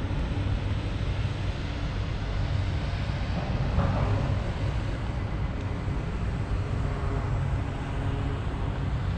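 Outdoor city street ambience: a steady low rumble with no distinct events.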